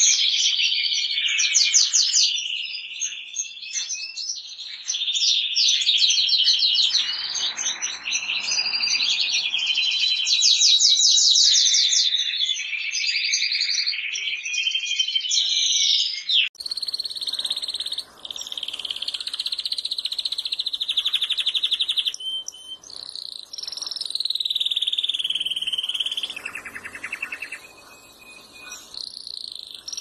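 Domestic canaries singing: long runs of fast trills and rolling notes, with falling whistled phrases. About halfway through, a different bird's song takes over.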